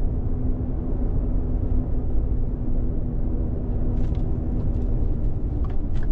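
Steady low rumble inside the cab of a 2013 Ford F-150 on the move with its stock exhaust: mostly tyre and road noise, the stock exhaust very quiet beneath it. A few faint clicks in the second half.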